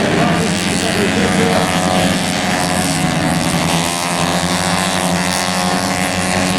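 Several tuned 130 cc automatic scooter race engines revving high together, their pitch rising and falling as they run on the track.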